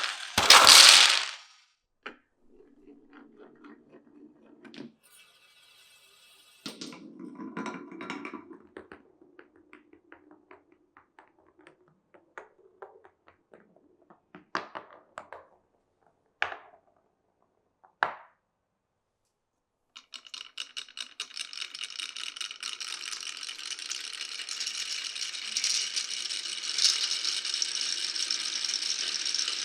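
Marbles running on a wooden marble run: a loud burst at the start, then low rolling on wooden track broken by clicks and knocks as the marbles drop and strike the pieces. About two-thirds through, after a brief pause, a dense, continuous rattle of many marbles running together begins and grows a little louder.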